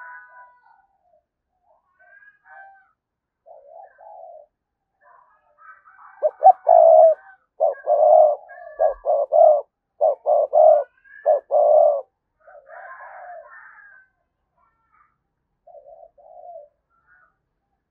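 Spotted dove used as a decoy, cooing: a run of about eight loud, low coos between about six and twelve seconds in, with fainter softer coos around them.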